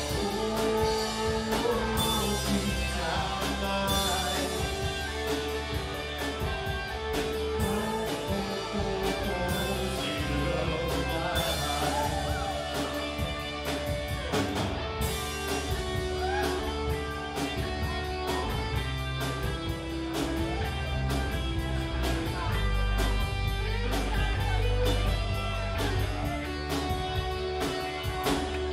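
A live rock band playing, with electric guitar, bass and drum kit, and a singing voice over it.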